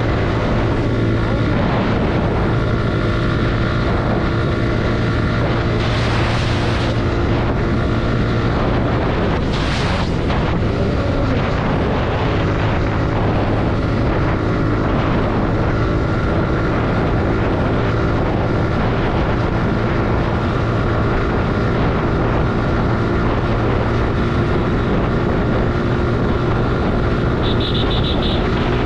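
Suzuki Gixxer 155's single-cylinder engine running steadily at cruising speed, with wind rushing over the microphone. Two brief whooshes come about six and ten seconds in, and a short high-pitched beep near the end.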